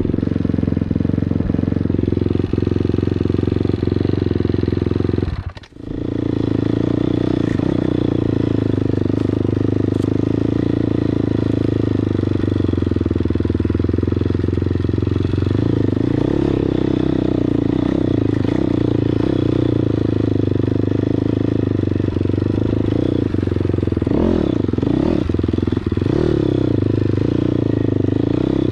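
2009 Honda CRF250R's single-cylinder four-stroke engine running steadily while riding trail, with a brief drop-out about six seconds in and the pitch wavering up and down near the end as the throttle is worked.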